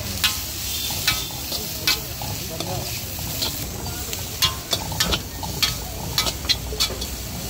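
Long metal spatula scraping and clanking against a large steel wok as hakka noodles and shredded vegetables are stir-fried, over a steady sizzle. The sharp clanks come irregularly, a dozen or so, with a bunched run in the second half.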